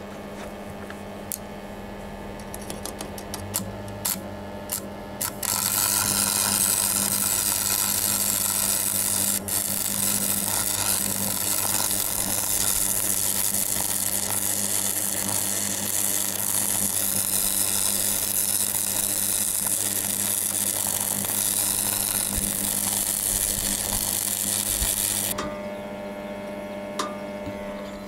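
Stick (MMA) arc welding with a small Rockworth AR100 arc welder: a few ticks as the rod is struck in the first five seconds, then the arc crackles and sizzles steadily for about twenty seconds before it stops. The welder's steady mains hum sits underneath.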